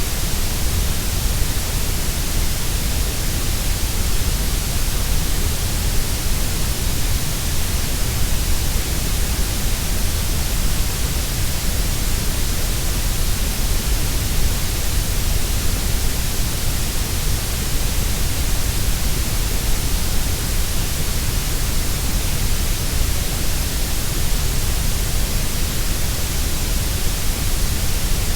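Synthesized grey noise: a steady, unbroken hiss with a deep rumble underneath, its middle range softer than its lows and highs.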